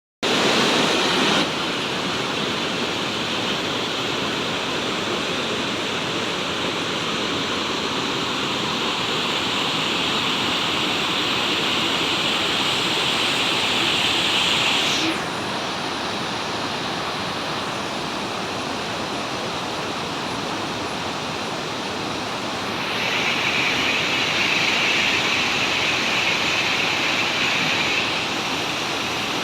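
Charpa waterfall in rainy-season flow: a steady rush of falling water. Its loudness and brightness shift abruptly a few times.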